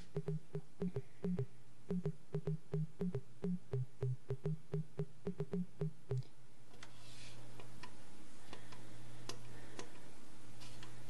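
Roland XV-2020 synthesizer sound module playing a demo patch: a quick, even pattern of short low notes with clicks, about five a second. About six seconds in it changes to a steady low drone under a crackling noise with scattered clicks.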